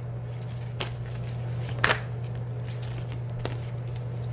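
A deck of cards being shuffled by hand, with three short sharp snaps of the cards, the loudest about two seconds in. A steady low hum runs underneath.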